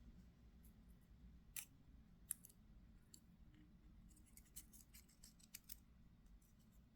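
Mostly near silence, broken by faint light metallic clicks and taps as small folding-knife parts are handled and fitted together during reassembly: two distinct clicks around two seconds in and a quick run of them near five seconds.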